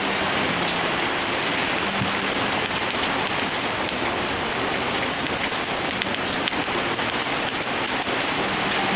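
Heavy rain falling steadily on a surface: a dense, even hiss with scattered sharp drop ticks.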